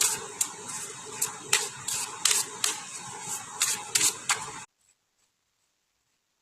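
Tarot cards being shuffled by hand: a run of quick papery snaps and slaps, a few each second, that stops abruptly about four and a half seconds in.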